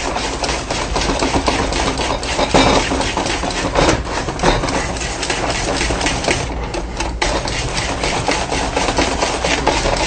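A spoon stirring and scraping thick semolina halva around a metal pot in quick, steady strokes, with a short break about six and a half seconds in.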